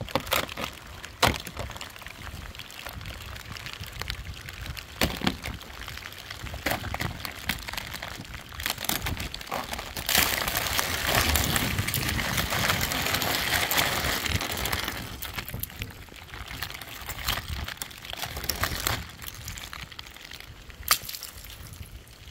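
Scattered crackles and crunches of ice on thickly iced surfaces during freezing rain, with a louder, even rush of noise from about ten seconds in that lasts some five seconds.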